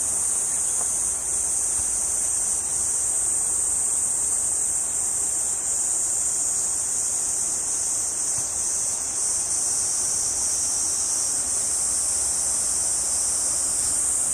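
Dense chorus of insects: a continuous, even, high-pitched buzzing drone that never breaks.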